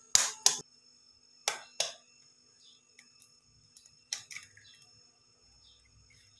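A raw egg knocked against the rim of a glass bowl: two pairs of sharp taps in the first two seconds, then a quick cluster of cracks about four seconds in as the shell is pulled open.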